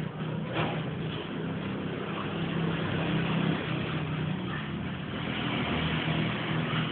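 Dogs play-growling during rough play: a continuous low rumbling growl that swells and eases.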